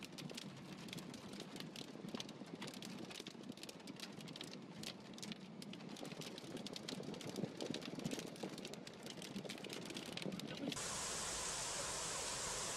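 Heavy rain crackling on a car and flood water splashing around it as it drives through a flooded street, heard from inside the car with a low rumble beneath. About eleven seconds in it cuts abruptly to a steady, even hiss.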